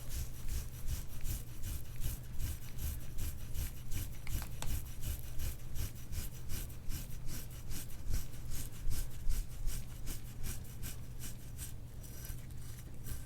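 Instrument-assisted soft-tissue scraping: a tool drawn over lubricated skin in quick, rhythmic strokes, about three a second. A steady low hum runs underneath.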